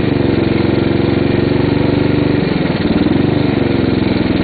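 Motorcycle engine running at low speed as the bike pulls off the road to stop. Its note dips and comes back up again a little past halfway.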